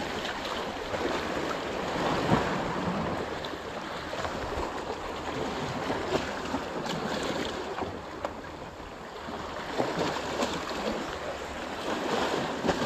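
Sea waves washing and wind noise on the microphone, as a steady rushing hiss, with a few faint clicks of the rod and spinning reel being handled.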